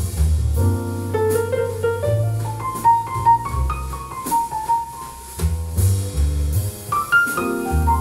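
Recorded jazz ballad played through a pair of JBL Studio 280 three-way floorstanding loudspeakers and heard in the room. This is an instrumental passage, with piano lines over deep bass notes.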